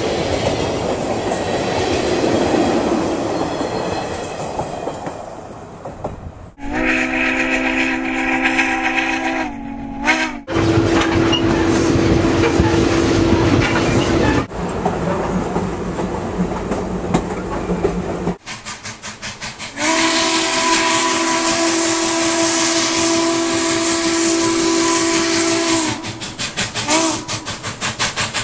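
Steam-hauled passenger cars rolling past with a rail-joint clickety-clack. Then Southern Pacific Daylight 4449's multi-chime steam whistle sounds several long blasts, followed by a few short toots near the end.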